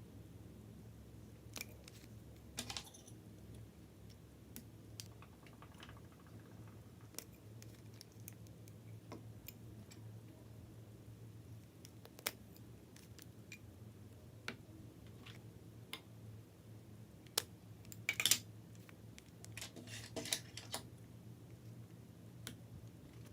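Scattered small clicks and taps, irregular and a few seconds apart, with a denser, louder cluster near the end, over a steady low hum.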